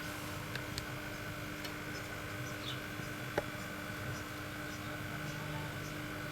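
Quiet steady hum with a few faint ticks and one sharper click a little past halfway.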